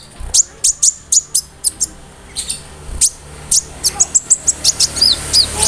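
Konin (ruby-cheeked sunbird) singing in full voice: a fast, loud string of short, sharp, very high chips and ticks, about five a second, with a few downslurred whistles near the end. The song is mixed with mimicked phrases of other birds and insects.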